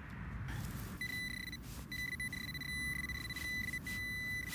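XP Deus metal detector giving a steady high-pitched beep from about a second in, broken by a few brief gaps, signalling a buried metal target. A low rumble runs beneath it.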